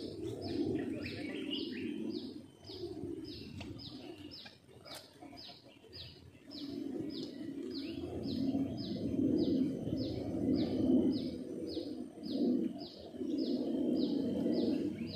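Birds calling: a dove cooing in low, repeated phrases over a short high chirp that repeats evenly about three times a second. The cooing pauses for a couple of seconds near the middle and then comes back steadily.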